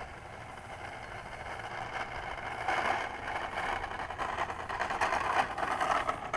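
E-flite Carbon-Z Cessna RC plane rolling on the ground on its bouncing nose wheel, its electric motor running. The noise swells about two and a half seconds in.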